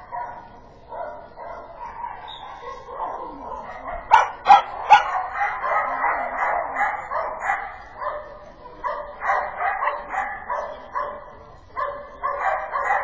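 Dogs barking repeatedly in quick, excited yips, with three sharp clicks about four to five seconds in.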